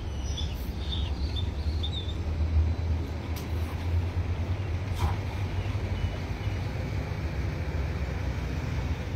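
Cars driving slowly past at close range over a rough patch of street, a steady low engine rumble; a single short click about five seconds in.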